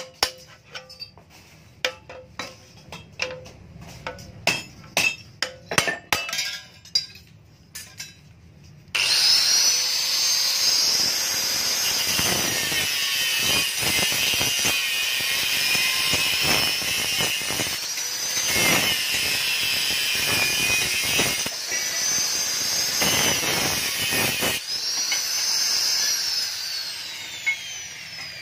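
Scattered light metal taps and scrapes, then an angle grinder starts up and cuts into the steel shell of a stock motorcycle muffler, opening it up to gut the internals. The grinder's high whine dips and recovers as the disc bites. Near the end it is switched off and winds down with a falling whine.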